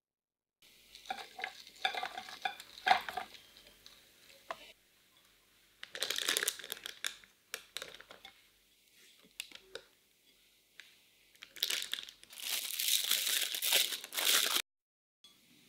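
A silicone spatula scrapes and dollops thick whipped chocolate cream into a plastic piping bag, which crinkles in short irregular bursts. The loudest and longest crinkling comes near the end, as the top of the bag is gathered and folded by hand.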